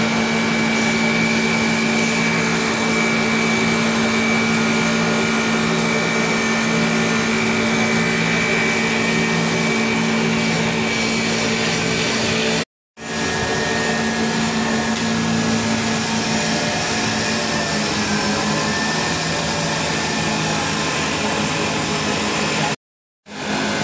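Two-spindle CNC automatic wood lathe running, its cutters turning two wooden walking sticks at once: a steady hum and a thin high whine over a hiss of cutting. The sound drops out briefly twice, about 13 seconds in and near the end.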